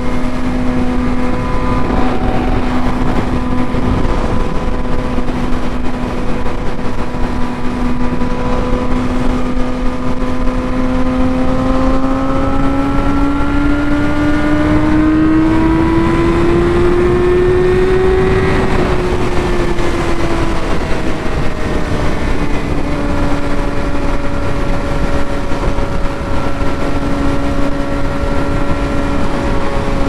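Yamaha R6 inline-four engine running at steady highway speed over heavy wind rush. Just before midway the engine note climbs for several seconds as the bike accelerates, then falls back and settles to a steady cruise again.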